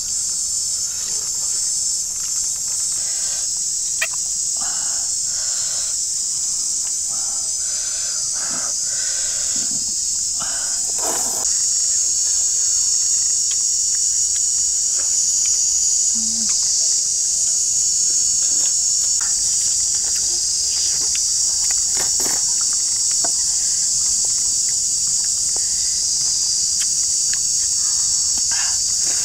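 Steady, high-pitched chorus of insects, growing louder about twelve seconds in. Scattered short knocks and clatter sound over it during the first ten seconds or so.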